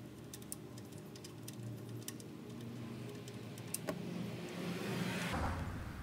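Light metallic clicks as the oil drain plug is turned out of the sump by hand, then engine oil starts pouring into a plastic drain container about four seconds in, a splashing hiss that swells toward the end.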